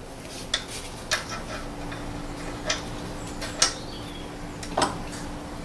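Light clicks and taps of metal tools and a small locking pin at a car's alternator-belt tensioner, about five irregular ticks over a faint steady hum.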